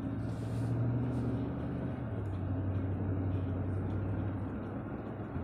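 Car engine and road noise heard inside a moving car's cabin: a steady low drone whose pitch drops slightly about two seconds in.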